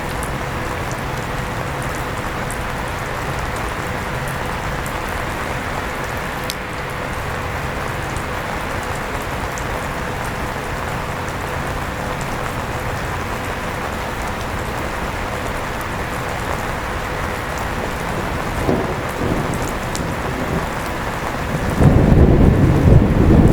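Steady rain with an electric fan running under it, a thin steady hum beneath the even hiss of the rain. Near the end a loud, low rumble of thunder begins.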